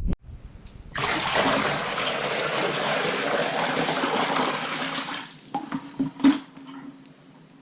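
Water running or pouring steadily for about four seconds, starting about a second in and stopping suddenly, followed by a few light knocks.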